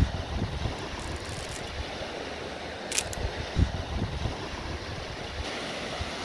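Small waves washing onto a pebble lakeshore, with wind gusting on the microphone as low rumbles. A couple of sharp clicks about three seconds in.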